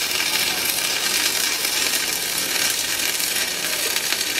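Stick-welding arc from a 2 mm Paton electrode at about 70 amps, burning with a steady crackling hiss.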